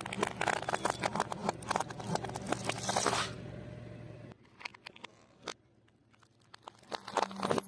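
Close-up crunching and chewing of crispy fried food, dense crackles for about three seconds. It then quietens to a couple of single clicks and near quiet, and the crunching starts again near the end.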